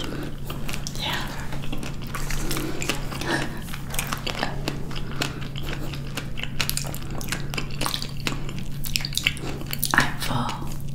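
Close-miked chewing of soft fruit: irregular wet clicks and smacking mouth sounds, with a few crisper bites.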